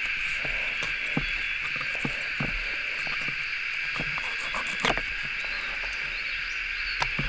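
A steady, high insect chorus, with scattered light clicks and taps of a fillet knife cutting a small redfin perch on a wooden chopping board. The sharpest click comes about five seconds in.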